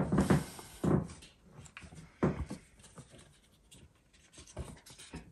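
Scraping and rubbing of hands handling cut snake eggs in a plastic tub on a plastic grid: several short, uneven bursts, the loudest at the start, about a second in and just after two seconds in.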